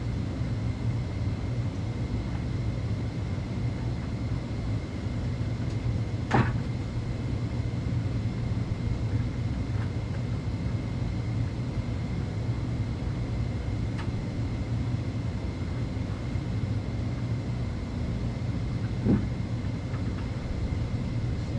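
Steady low hum and rumble of a hot tub's pump and jets running, with a faint steady high tone over it. A couple of faint knocks come about six and nineteen seconds in.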